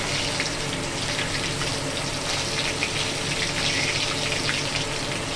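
Tempering of cumin seeds, bay leaves and dried red chillies frying in hot oil in a kadai: a steady sizzle with fine crackles.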